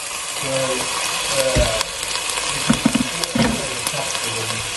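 Water poured into a hot pan of sautéing onion, garlic and carrot, hissing and sizzling as it hits the oil. A few low knocks sound in the middle.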